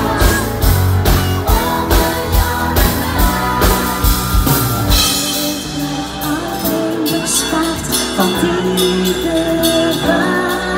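Live pop-rock band music with a steady drum beat. About five seconds in, the drums drop out for a quieter passage of long held notes and singing.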